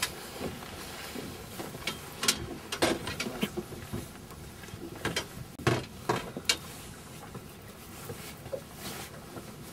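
Fishing rod and tackle being handled on a boat: irregular sharp clicks and knocks, most of them in the middle few seconds, over a steady background hiss.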